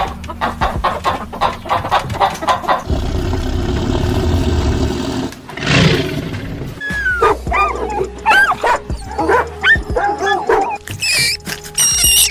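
Dogs barking and yelping over background music, with a run of short rising and falling calls in the second half.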